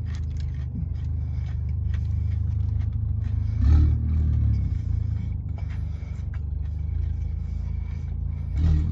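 Steady low rumble of a car engine idling, heard inside the cabin, with two short louder sounds, one about four seconds in and one near the end.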